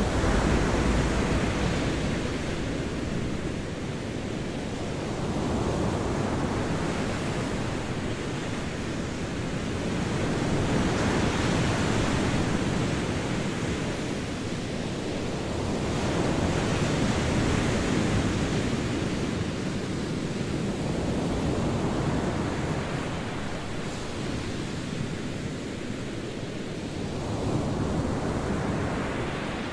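Sea surf washing onto a shore, the noise of the waves swelling and falling back in slow surges every five or six seconds.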